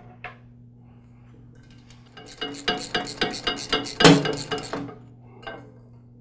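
Steel tine holder assembly and shear bolt clinking and rattling against the tiller's tine shaft as the assembly is seated and bolted on. A quick run of metal clinks starts about two seconds in and peaks near the middle, with one more clink shortly after.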